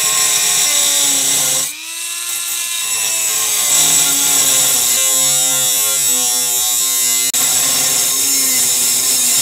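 Dremel rotary tool with a right-angle attachment and a metal cutoff wheel running at high speed, cutting through a metal bracket and throwing sparks. Its whine sags in pitch for a moment less than two seconds in as the wheel bites, then climbs back, and cuts out very briefly a little after seven seconds.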